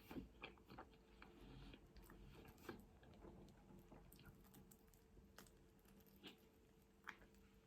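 Very faint chewing and scattered soft mouth clicks of someone eating.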